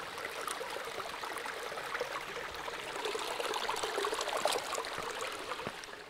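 A small mountain creek trickling and splashing over rocks as a steady rush of water, with a few footsteps on the stones. The sound stops abruptly at the end.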